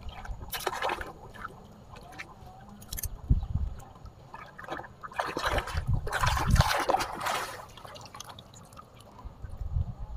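Water splashing and sloshing in several irregular bursts, the longest and loudest lasting over a second about six seconds in.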